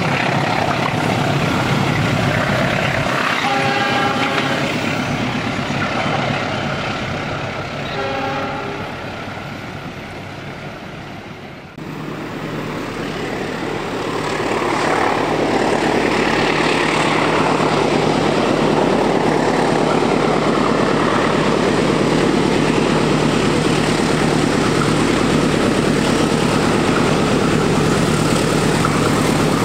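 Passenger train running away round a curve, with two short horn blasts about 4 and 8 seconds in as its sound fades. After a sudden cut, a diesel locomotive hauling a long train of tank wagons approaches, its engine and rolling wheels growing to a loud, steady rumble.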